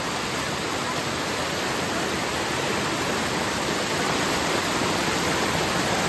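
Steady rush of running water, growing slightly louder.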